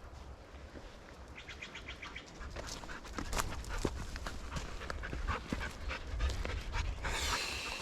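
A dog panting quickly close to the microphone, with a brief rush of noise near the end and wind rumbling on the microphone.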